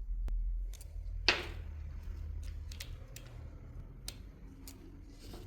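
Light clicks and taps of starter-motor parts being handled on the workbench, with one louder knock and scrape about a second in, over a steady low hum.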